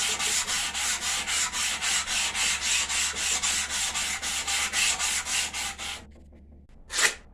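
Electric palm sander with fine-grit sandpaper sanding an oiled knife blade: a steady abrasive hiss over a low motor hum, pulsing about four to five times a second. It stops about six seconds in, and a short sharp knock follows about a second later.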